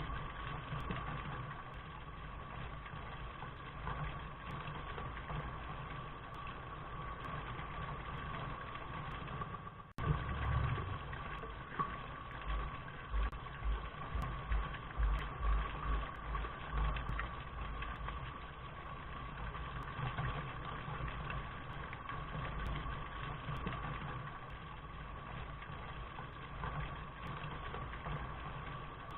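Steady rain noise with a low rumble underneath. It breaks off for an instant about ten seconds in, followed by a few seconds of low pulsing thumps.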